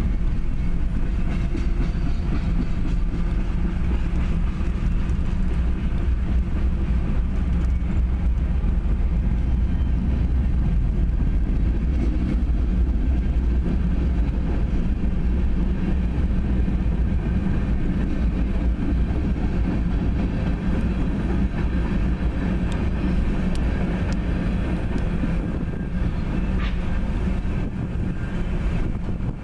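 Freight train cars rolling past, double-stack container well cars and an open hopper: a steady rumble of steel wheels on the rails, with a few faint clicks late on.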